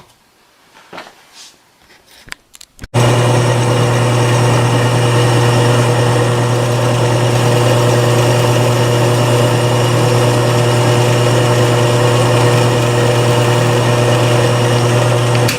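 Light handling clicks, then about three seconds in a machine tool's electric motor comes in suddenly and runs at a steady, even hum while drilling the hole for the 6-32 tap in a small steel pad.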